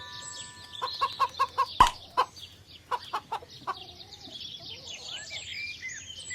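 Chickens clucking in short quick runs, two bursts in the first half, over steady chirping of small birds.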